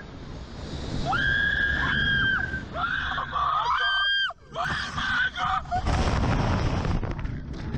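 Two young women screaming in long, high-pitched held screams, with a shouted exclamation between them. Later a rush of wind over the microphone as they are flung upward.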